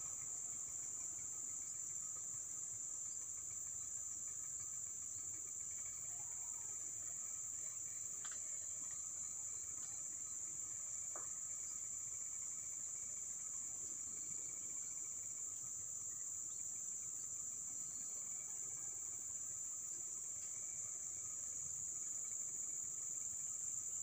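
Steady, high-pitched chorus of insects calling in the forest, a continuous shrill drone with no break, and fainter lower-pitched insect lines beneath it.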